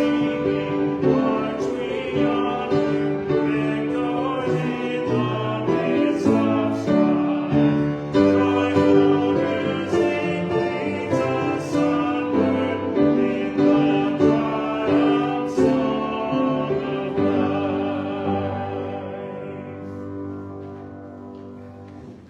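Slow classical-style music with sustained notes and a singing voice, fading away over the last few seconds as the piece ends.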